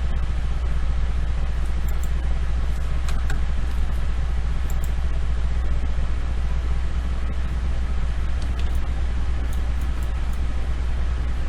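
Steady low hum of background noise, with a few faint short clicks scattered through it.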